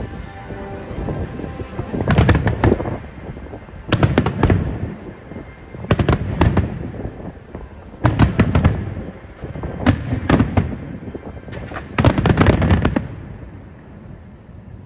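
Fireworks bursting in a regular volley pattern: six clusters of sharp bangs and crackles, one about every two seconds, with the bursts dying away near the end.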